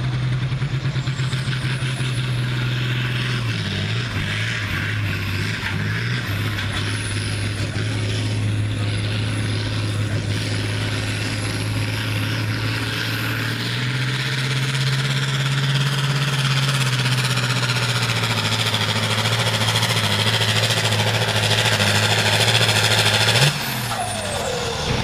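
Pro farm pulling tractor's diesel engine running flat out under full load as it drags the weight sled, a steady heavy engine note with a hiss above it that grows slowly louder through the pull. Near the end the throttle is cut suddenly and the engine drops away as the run ends.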